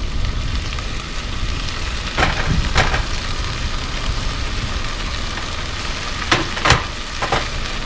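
Food sizzling in a cooking pot on a gas camp stove over a steady low rumble. Two pairs of sharp knocks come a couple of seconds in and again near the end.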